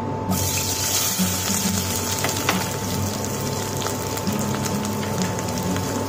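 Sliced onions hitting hot oil in a stainless-steel pressure cooker and frying: a steady sizzle with scattered crackles that starts about a third of a second in.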